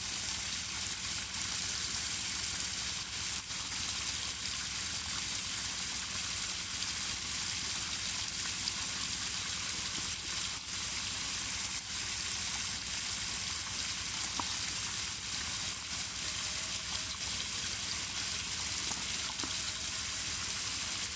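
Steady rush of running water with a faint low hum underneath, and a few faint wet ticks as live tilapia fry flap in a steel bowl.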